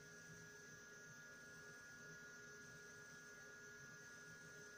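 Near silence: room tone with a faint steady electrical hum made of a few thin, unchanging tones.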